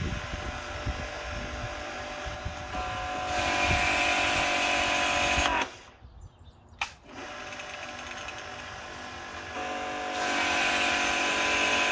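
Kärcher 620M electric pressure washer running with the trigger held. At first the pump motor runs at a lower, steady level with water only flowing. About three seconds in it turns loud with a hissing jet once pressure builds. It cuts out for about a second just before the middle, starts again at the lower level, and goes back to the loud hissing spray about ten seconds in. The unit does not build pressure on its own until the front of the lance is opened and closed.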